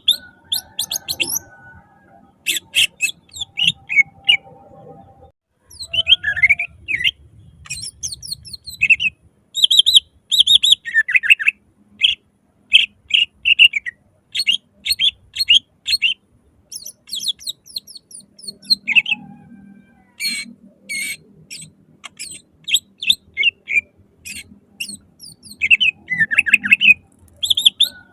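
Cucak ijo (green leafbird) singing loudly in bursts: fast runs of short, sharp notes and downward-sweeping phrases, broken by brief pauses.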